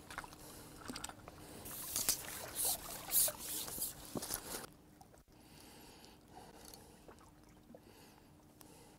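Water splashing and pouring off a landing net as it is drawn out of the lake with a tench in it, in a quick run of splashes over the first half, then fainter drips.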